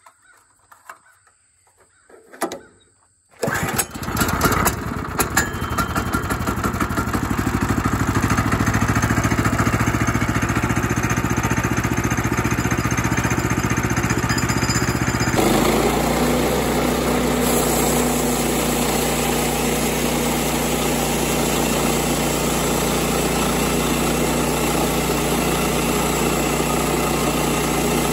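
Kohler Command PRO 9.5 single-cylinder engine on a Woodland Mills portable sawmill starting up about three seconds in, running unevenly for a couple of seconds and then steadily. About a dozen seconds after it starts, its note changes abruptly and it settles into an even idle.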